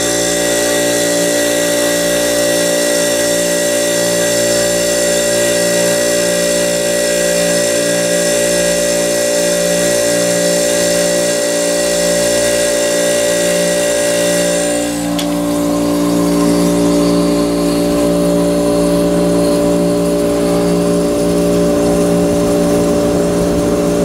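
1982 Carrier Siesta window air conditioner running and cooling, its Tecumseh reciprocating compressor and fan giving a steady hum. About fifteen seconds in, the higher whine drops away and the hum carries on.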